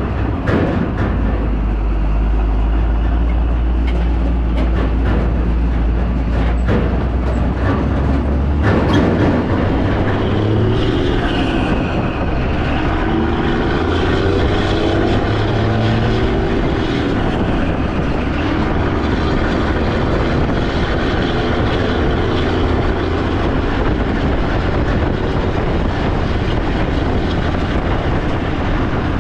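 A vehicle driving on the road, with steady engine and road noise and a strong low hum that shifts about nine seconds in.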